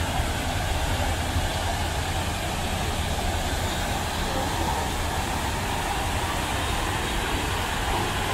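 Steady rushing of water cascading down the granite walls of a 9/11 Memorial reflecting pool, mixed with low city rumble.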